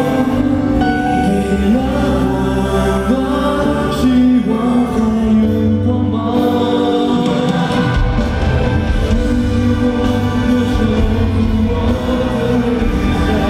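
Live pop band music with a male singer singing into a handheld microphone, over drums and keyboards, heard from the audience. The bass and drums get much fuller about eight seconds in.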